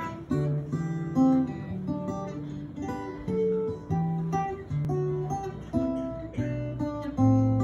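Acoustic guitar playing an instrumental introduction, a run of plucked and strummed notes changing about every half second.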